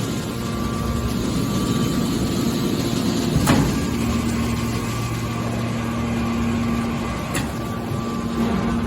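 Hydraulic scrap metal baler running: a steady mechanical hum from its power unit, with a sharp metallic knock about three and a half seconds in and a fainter one near the end.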